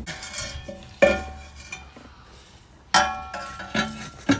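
Bare metal exhaust mid-pipe knocked against metal as it is fitted under the car: two sharp clanks about two seconds apart, each ringing briefly, with softer handling noise between.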